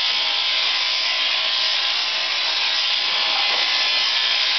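Mechanical sheep-shearing handpiece running steadily as its comb and cutter clip through a thick fleece, a continuous even buzz.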